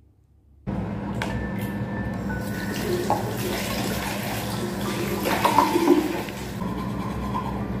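Steady rush of running water with a low hum under it, starting abruptly just under a second in.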